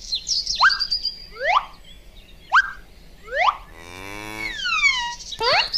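Cartoon sound effects: four short, quick rising whistle-like chirps about a second apart, then near four seconds a longer cartoon cow moo with falling whistle-like glides trailing after it.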